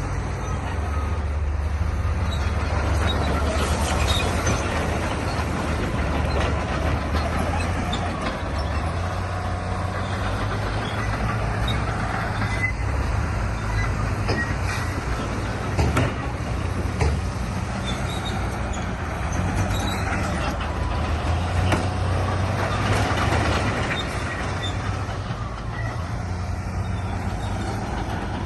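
Heavy diesel earthmoving machinery running steadily with a deep engine hum and continuous rattling and scraping, with two sharp knocks about a second apart just past the middle.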